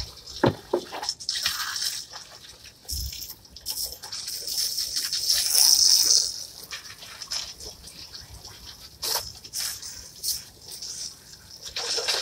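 Garden hose spray nozzle hissing and splashing water onto plastic patio chairs; the spray swells and is loudest about halfway through. Sharp knocks of the plastic chairs being lifted and set down come now and then.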